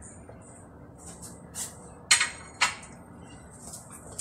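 Quiet kitchen handling: a few faint rustles, then two sharp clicks or knocks about half a second apart, a little after two seconds in.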